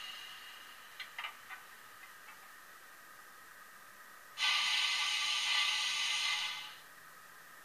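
Sound decoder of a Piko BR 232 diesel locomotive model playing through its small speaker. A few light clicks come about a second in. Then a sudden loud hiss lasts about two seconds and fades, over a faint steady hum.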